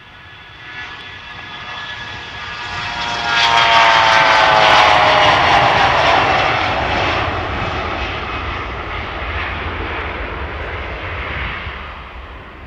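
Bombardier CRJ regional jet's two rear-mounted General Electric CF34 turbofans at takeoff power during its takeoff roll. The engine whine builds, is loudest about four seconds in as the jet passes, with its pitch falling, then eases into a lower rumble as the jet rolls away.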